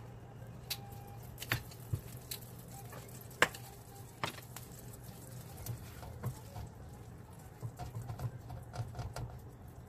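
Caramel sauce boiling in a nonstick skillet: scattered small pops and ticks of bursting bubbles over a low steady hum.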